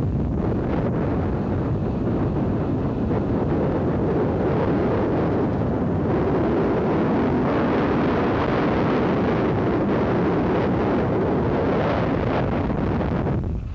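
Steady rumble of wind buffeting a camcorder microphone, mixed with road noise from the moving vehicle it rides in.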